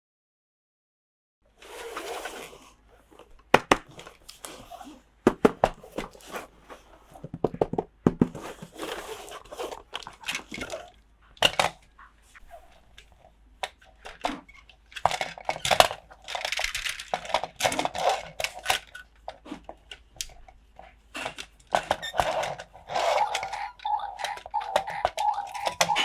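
Plastic packaging crinkling and tearing, with many sharp clicks and knocks of small plastic toy pieces being handled. Near the end a steady pitched sound joins in.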